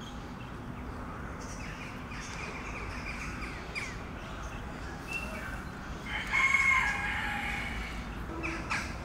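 A rooster crowing once, about six seconds in, over scattered small bird chirps.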